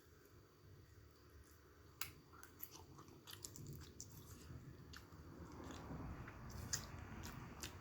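A person chewing food close to the microphone, with a few sharp crisp clicks and a soft wet chewing sound that gets louder in the second half.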